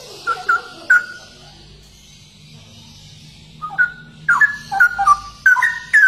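Straw-headed bulbul (cucak rowo) singing: three short, rich whistled notes in the first second, then after a pause a quick, bubbling run of whistled notes from about four seconds in.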